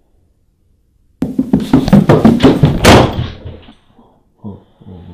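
Quick, loud run of heavy thuds, like footsteps hurrying down carpeted stairs, starting about a second in and lasting some two and a half seconds, followed by a few fainter thuds.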